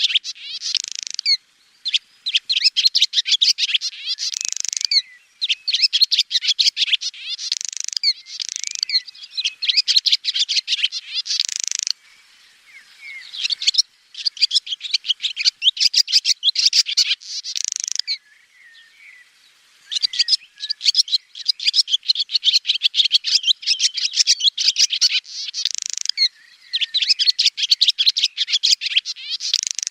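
Swallow twittering: long runs of rapid, high-pitched chirps and trills, broken by a couple of short pauses about twelve and eighteen seconds in.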